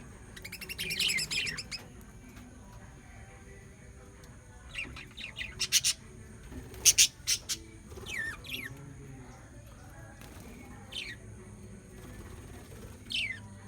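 Small birds chirping and calling. A rapid chattering run of high calls comes about a second in, followed by scattered sharp calls and short downward-sweeping chirps, the loudest about halfway through.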